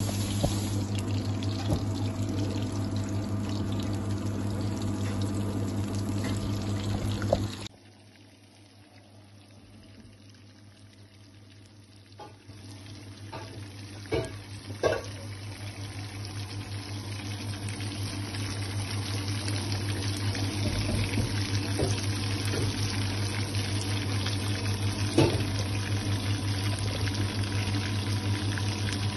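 Battered fish pieces deep-frying in a pan of oil, sizzling and bubbling steadily over a low hum. The sound cuts off abruptly about seven seconds in, then the sizzling builds back up and holds, with a few sharp pops.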